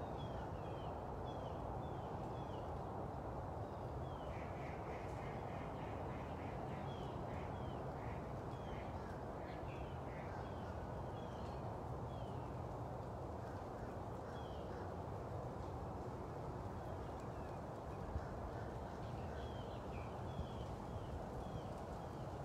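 Birds chirping over and over in short, quick downward notes, above a steady low outdoor background noise. A few faint clicks come near the end.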